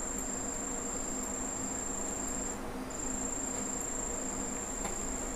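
A steady, high-pitched trill-like whine that drops out briefly about two and a half seconds in, over a faint low hum.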